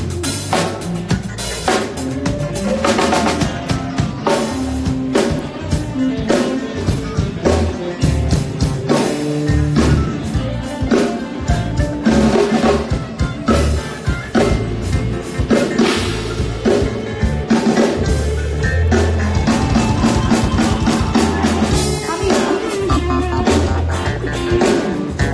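A live band playing an instrumental passage in a large hall during a soundcheck, with the drum kit (snare, rimshots and kick) to the fore over bass and other instruments, picked up by a phone's microphone.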